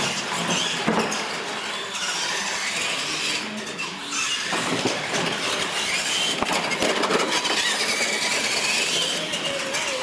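Radio-controlled monster trucks racing on a concrete floor: electric motors whining, rising and falling in pitch with the throttle, over tyre noise and squeaks, with scattered clicks and knocks.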